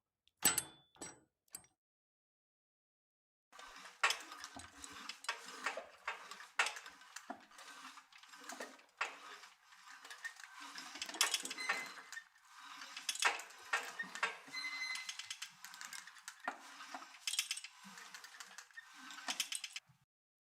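Metal gym weights clinking and rattling: a few sharp clicks, then after a short pause a long run of quick metallic clanks and rattles, some strikes leaving a brief ring.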